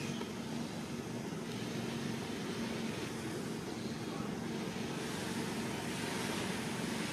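Steady outdoor background noise, a low hum under a broad hiss, like distant road traffic.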